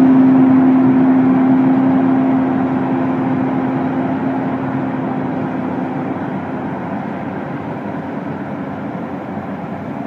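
Claas Lexion 670 combine harvester running while cutting wheat: a steady machine hum with a strong drone. It fades gradually as the combine moves away.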